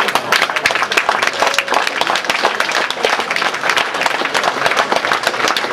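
A roomful of people applauding: many hands clapping densely and steadily.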